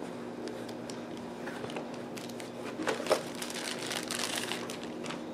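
Clear plastic bag crinkling as it is handled, in irregular crackly bursts, loudest about three seconds in.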